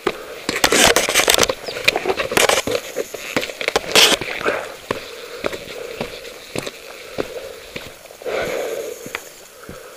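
Hands and boots scuffing, scraping and knocking on granite boulders during a scramble up the rock, dense for the first few seconds and then sparser clicks, with a sniff or breath a little over eight seconds in.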